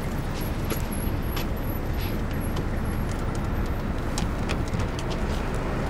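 Steady low rumble of a car engine idling, heard from inside the cabin, with scattered light clicks.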